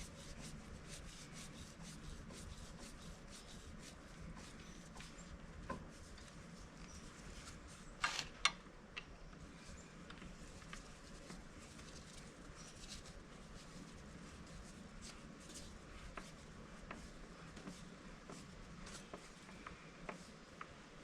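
Faint hand-working sounds: light rubbing and scattered small clicks, with two sharper clicks in quick succession about eight seconds in.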